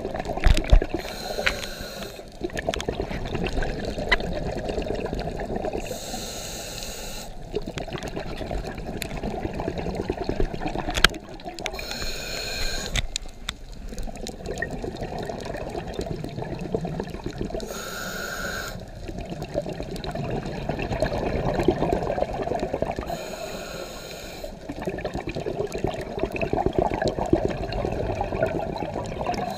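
A scuba diver's regulator breathing underwater: a short hiss about every five to six seconds, five times, with a low rumble of exhaled bubbles in between.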